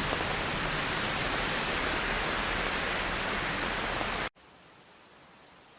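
Steady hiss of heavy rain. About four seconds in it cuts off abruptly and gives way to a much fainter, softer rain hiss.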